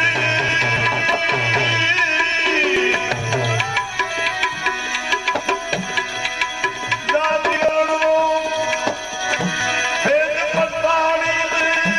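Instrumental interlude of a Gujarati bhajan: tabla playing under a held, sustained melody line. Deep, ringing bass-drum strokes come in the first few seconds, then quicker, denser tabla strokes from about four seconds in.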